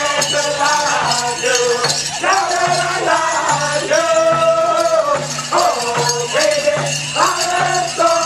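Powwow drum group singing a two-step song over a steady, evenly repeating drum beat.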